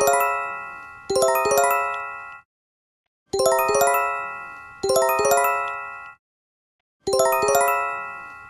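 Emergency alert chime: each stroke is a quick rising run of bell-like electronic tones that rings out and fades. The strokes come in pairs about a second apart, and the pairs repeat three times with short silent gaps between them.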